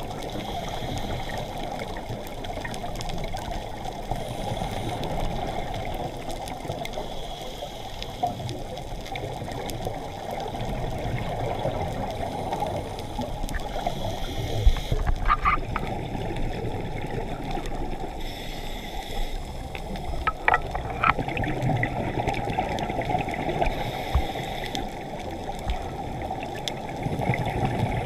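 Muffled, steady rushing and trickling water, heard as if through a sealed dive camera housing, with a few sharp clicks a little past halfway.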